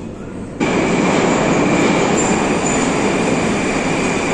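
Metro train running alongside a station platform: a loud, steady rush of wheel and running noise with a thin, steady high whine, starting suddenly about half a second in.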